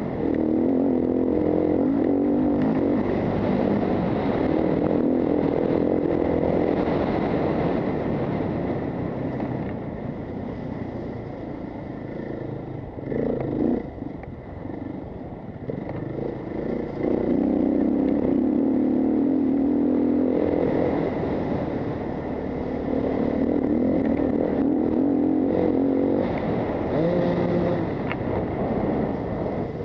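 Enduro dirt motorcycle engine heard from on board, revving and shifting as it rides a gravel track, its pitch stepping up and down. It eases off for several seconds in the middle before pulling hard again, over steady wind and gravel noise.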